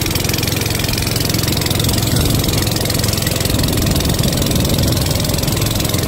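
Long-tail boat engine running steadily under way.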